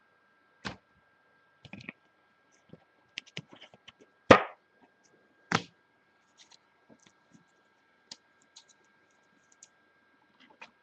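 Trading cards and card boxes being handled on a table: scattered small clicks, taps and scrapes, with a louder knock about four seconds in and another a second later.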